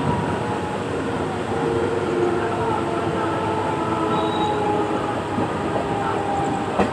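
Train running on the rails: a steady rumble with faint, shifting squeal tones from the wheels.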